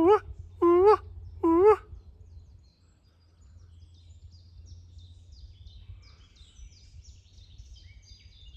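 A man's voice giving three short, loud hooting calls, each rising then falling, in quick succession, imitating a call heard in the treetops. Faint songbird chirping follows in the second half.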